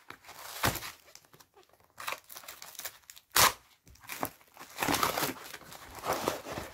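Cardboard mailer being torn open by hand: irregular tearing and crinkling of cardboard, tape and paper, with one louder sharp noise about halfway through.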